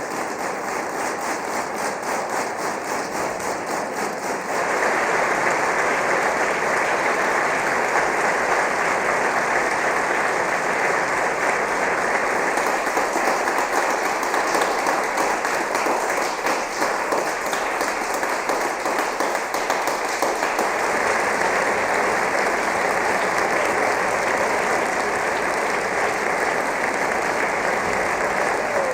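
Audience applause: many people clapping in a dense, steady patter that becomes louder and fuller about four and a half seconds in.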